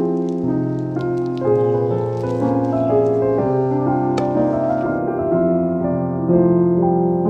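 Background piano music, a gentle melody over sustained chords.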